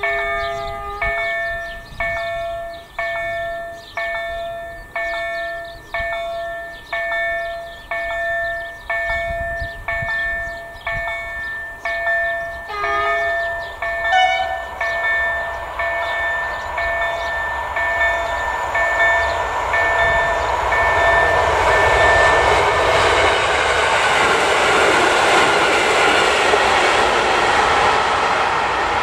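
Bombardier KLD-4103 electronic level-crossing bell striking about once a second, each ding ringing and fading, while the crossing warns of a train. About halfway through a train horn gives a short blast. Then a passing train's rushing rail noise builds up and covers the bell.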